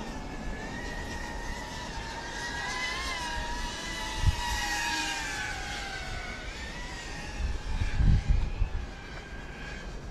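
FPV drone motors and propellers whining in flight, a steady high-pitched whine that rises a little, then falls and climbs again. Low thuds come about four seconds in and again around eight seconds.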